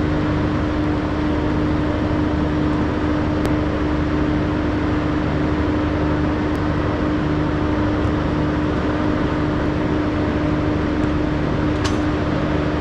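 Steady mechanical hum of a running motor, one constant low tone over an even noise with a faint regular throb beneath it. A few faint clicks come through, one near the end.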